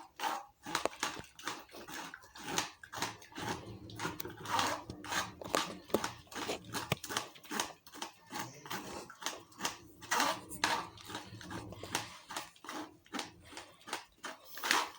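A blended parsley, onion, lemon and garlic drink being worked through a kitchen sieve: irregular wet scraping and squishing with light clicks against the strainer as the pulp is strained out.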